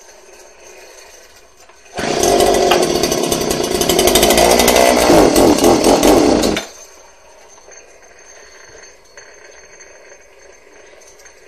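Two-stroke chainsaw idling low, then revved hard for about four and a half seconds starting about two seconds in, then dropping back to a faint idle. The idle is set a little low, and the owner wants to turn it up a tad.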